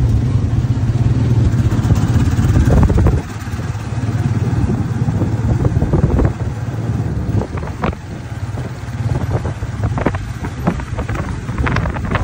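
Motorcycle engine of a Philippine tricycle running under way, heard from aboard, easing off about three seconds in. Short rattles and clatter from the tricycle's body come through over the engine hum.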